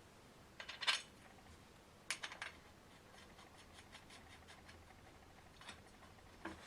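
Light metal clinks and rattles of a motorcycle luggage rack's steel brackets and bolts being handled and fitted together, in a few short clusters with faint ticking between them.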